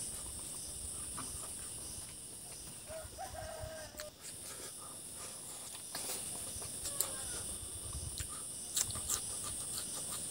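Close eating sounds as fingers work rice and meat and he chews, over a steady high insect drone. A chicken gives a short call about three seconds in.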